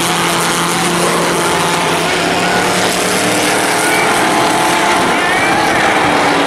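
Race car engines running steadily as the field laps a short oval track, with spectators' voices in the second half.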